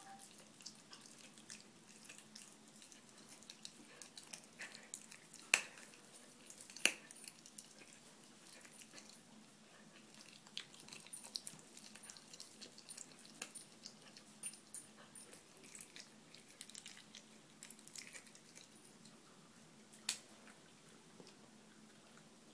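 A nine-week-old whippet-Bedlington cross puppy chewing a raw chicken wing: faint, irregular clicks of teeth on meat and bone, with three sharper cracks, two close together about a quarter of the way in and one near the end. A faint steady hum lies underneath.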